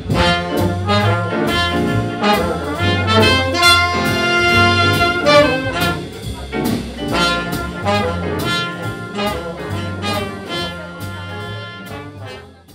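Jazz music with brass instruments over a steady beat, fading out near the end.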